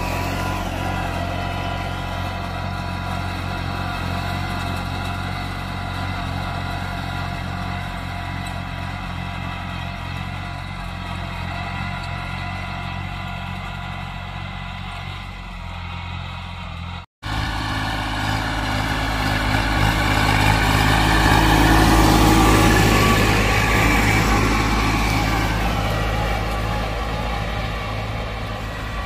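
Kubota B2420 compact tractor's three-cylinder diesel engine running steadily under load at about 2000 rpm while pulling a ridger through the soil. The sound cuts out for an instant just past halfway, then grows louder for a few seconds as the tractor comes closer, and eases off near the end.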